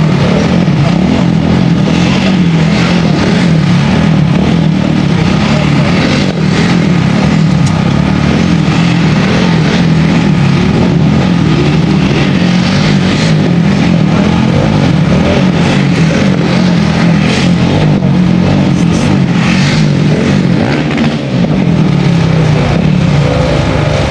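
KTM 1290 Super Duke's V-twin engine running hard and steadily during stunt riding, at an even loudness throughout.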